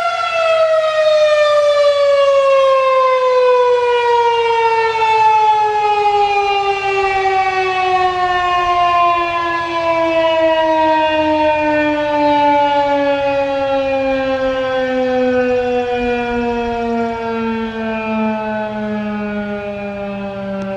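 Federal Signal 2001-130 outdoor warning siren winding down at the end of its steady Alert tone. The steady pitch breaks just as it begins, then slides slowly and continuously down while the sound gradually weakens, as the rotor coasts after the motor is switched off.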